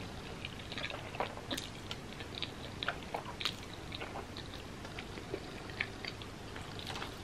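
Close-up mouth sounds of a person eating black bean noodles: irregular wet slurps of noodles being drawn into the mouth, then chewing with small smacks and clicks.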